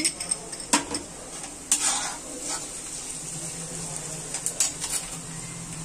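Thinly sliced onions sizzling as they fry in hot oil in a kadai, with a spoon stirring them and scraping and knocking against the pan a few times.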